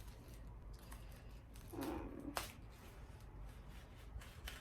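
Faint rustling and crinkling as a plant and its packaging are handled, with scattered small clicks. A short wordless vocal sound comes about two seconds in.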